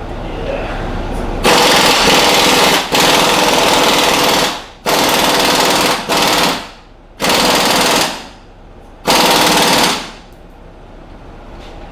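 Impact wrench hammering on the leaf-spring hardware in five bursts of a second or so each, every one starting sharply and trailing off as the tool winds down.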